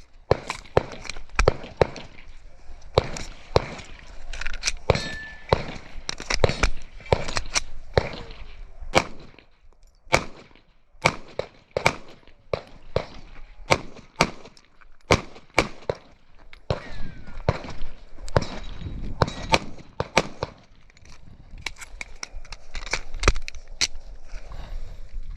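Airsoft pistol firing an irregular string of sharp shots, one or two a second, with a short pause about ten seconds in, during a timed shooting-stage run.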